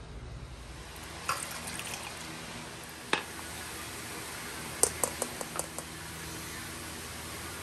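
Kitchen handling sounds: a sharp clink about a second in, another near three seconds, and a quick run of five or six taps and clinks of utensils and containers a little before halfway, over a steady hiss.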